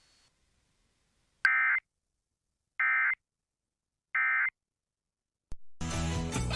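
Emergency Alert System end-of-message data bursts: three short, identical buzzy digital squawks about a second and a half apart, signalling the end of the tornado warning broadcast. Near the end there is a click, then rock music with guitar begins.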